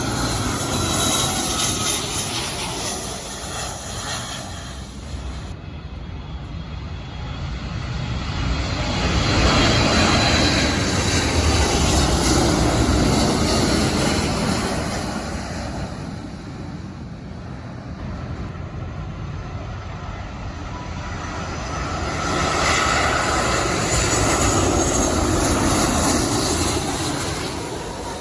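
Jet airliner engines running as aircraft pass, the sound swelling and fading three times, with a falling engine whine near the start.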